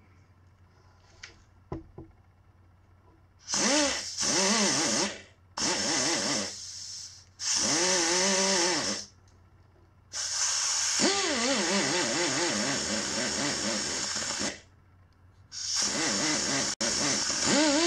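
Straight pneumatic die grinder with a Scotch-Brite disc, run in five bursts of a few seconds each starting a few seconds in: a loud rush of air with a motor pitch that wavers as the disc is pressed onto the metal. It is scrubbing base-gasket residue off the crankcase's cylinder mating surface.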